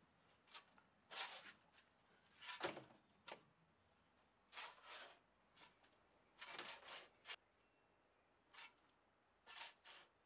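A shovel digging into loose sand and tipping it into a wheelbarrow: a faint run of short scrapes and pours, about one a second.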